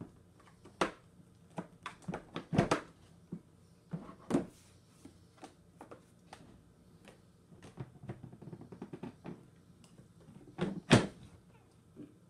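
Plastic parts of a Bissell Big Green carpet cleaner being handled and fitted: irregular clicks and knocks, the loudest about eleven seconds in.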